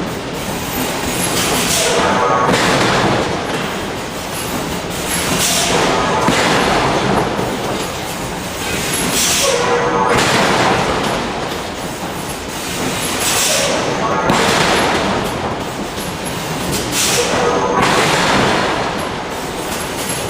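Heavy forging-shop machinery running with loud mechanical noise that swells and eases in a regular cycle about every four seconds, each swell carrying a brief pitched whine.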